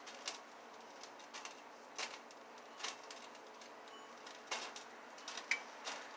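Faint, scattered clicks and scrapes, about seven in all, from a spoon scooping vegetable shortening out of a plastic tub.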